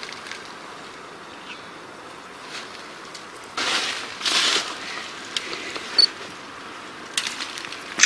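Dry branches of a wild rose bush rustling and crackling as rosehips are picked off by hand. There are two longer rustles around the middle and a few sharp snaps or clicks in the second half.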